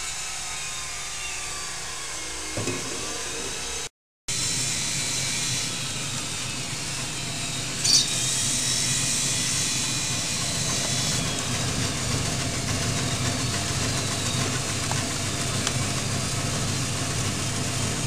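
Motor-driven washing and slicing machine for rhizomes such as ginger and turmeric, running steadily with a low hum. It stops briefly about four seconds in, then comes back louder, with a single sharp click near the middle.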